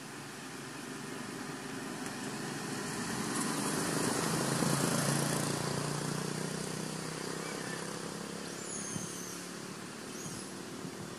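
A motor vehicle passing by: engine and road noise swells, peaks about four to five seconds in, then fades away. A few short high chirps come near the end.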